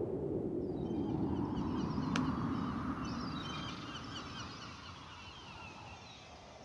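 A flock of birds calling, many short overlapping chirps, over a low rushing noise that slides down in pitch; both fade away toward the end.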